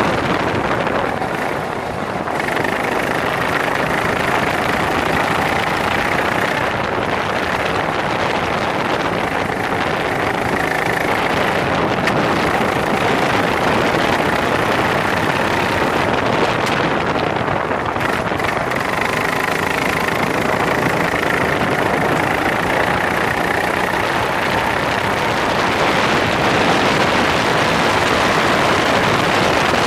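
Racing kart engine running at speed on track, its note rising and falling as the driver accelerates and eases off, heard from on board with heavy wind noise on the microphone.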